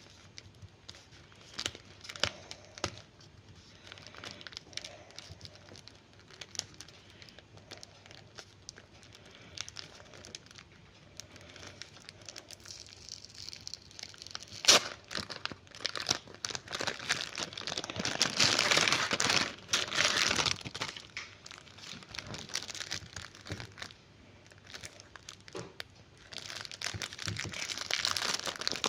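Food packaging crinkling and rustling as it is handled and opened, with a few scattered crackles at first. There is a sharp snap about halfway through, then a long, louder stretch of crinkling, and the crinkling picks up again near the end.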